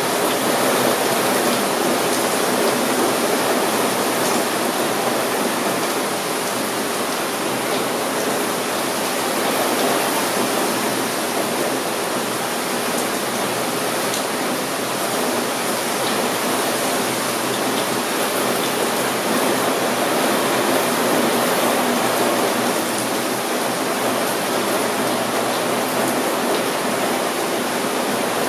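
Heavy rain falling steadily, a dense even hiss that keeps up without a break.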